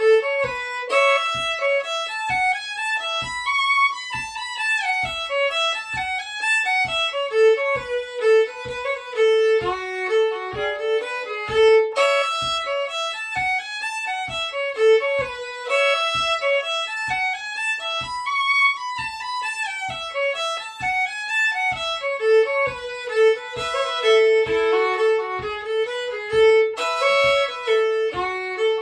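Solo fiddle playing a bluegrass tune at a medium-slow tempo: quick runs of bowed notes climbing and falling, with faint steady low taps underneath.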